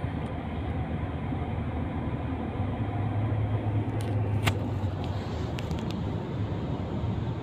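Steady road and engine noise inside a Kia car's cabin cruising at about 112 km/h on a motorway. A low drone grows stronger for a couple of seconds in the middle, and there is one short click about four and a half seconds in.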